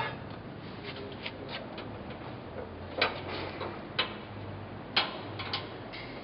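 Faint steady machine hum with sharp metallic clicks, several of them roughly a second apart in the second half.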